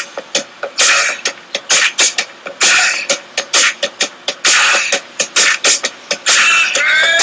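Background music track in a drum-and-percussion break: a steady beat of sharp hits with no melody. A sung or synthesised vocal line comes back in about six seconds in.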